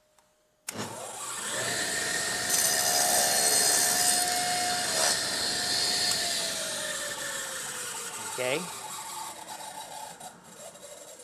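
Table saw switched on, its motor whining up to speed within about a second. The blade then saws through a scrap of wood for about four seconds, the loudest part. The saw is switched off and the whine falls slowly as the blade coasts down.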